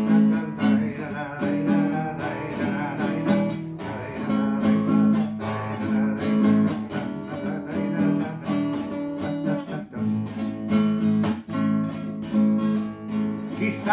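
Classical guitar strummed in a steady rhythm of chords, an instrumental passage of a slow song with no singing.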